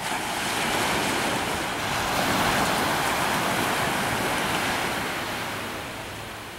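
Surf on the shore: a wave breaking and washing in, a rushing hiss that swells over the first couple of seconds and fades away near the end.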